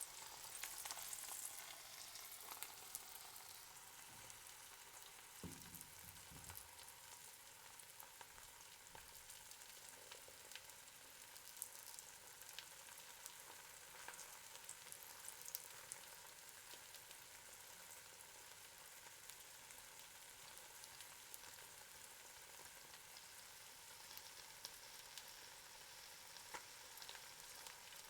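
Eggs frying in a pan: a soft, steady sizzle with scattered small pops and crackles, a little louder in the first couple of seconds.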